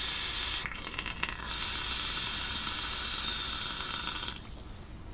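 Vape draw on a Vauban rebuildable dripping atomiser with its airflow wide open: air rushes through the deck while the 0.37 ohm coil, fired at 25 watts, sizzles. The hiss holds steady for about four seconds, then stops near the end.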